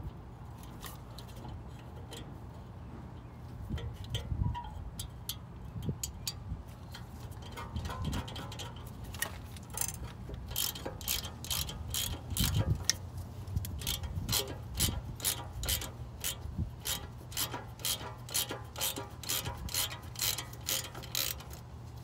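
Hand ratchet with a T30 Torx socket clicking as it backs out the bottom bolt holding the electric parking brake motor to a rear brake caliper. A few scattered knocks come first, then, from about halfway in, a long run of steady clicks, about two to three a second.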